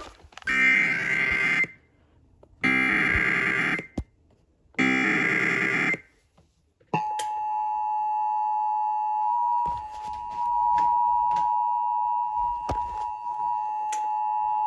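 Emergency Alert System SAME header: three short bursts of screechy data tone, about a second each with short silences between. Then, about seven seconds in, the steady two-tone EAS attention signal starts and is held, announcing an alert broadcast.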